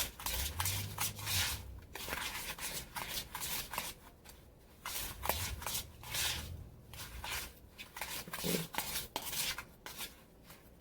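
A utensil stirring and scraping a thick mix of softened butter, brown sugar and cinnamon in a bowl, in quick irregular strokes with a couple of short pauses.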